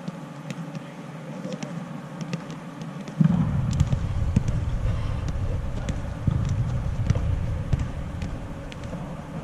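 Soccer balls being kicked and trapped on artificial turf, short light knocks scattered throughout. About three seconds in, a loud low rumble starts suddenly and runs on over the kicks as the loudest sound.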